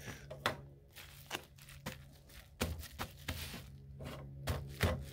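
Crinkling and rustling of a reflective insulation pouch and tape being handled and pressed down, with irregular small clicks and taps.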